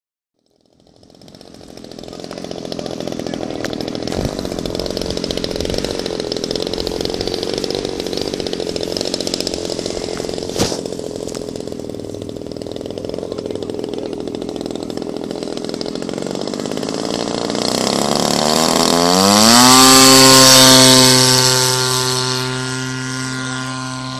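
Model airplane engine running steadily, then its pitch climbing about two-thirds through and holding at a steady high-rpm note, loudest around there.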